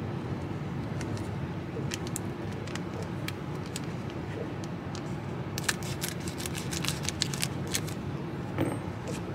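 Scissors snipping open a foil hockey card pack, a 2018-19 Upper Deck Series 2 hobby pack, and its wrapper crinkling. There are a few scattered crinkles, then a quick flurry of crisp snips and crackles from about five and a half to seven and a half seconds in, over a steady low hum.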